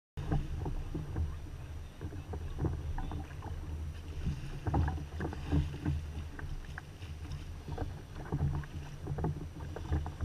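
Water slapping and splashing irregularly against a fishing kayak's hull on a choppy sea, over a steady low wind rumble on the microphone.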